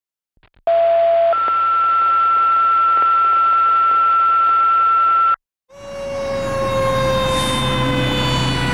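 Two-tone fire dispatch alert over a scanner radio: a short lower tone, then a long steady higher tone, with hiss and hum behind it. After it cuts off, a fire engine's Federal Signal Q2B mechanical siren comes in, its whine slowly falling in pitch as it winds down.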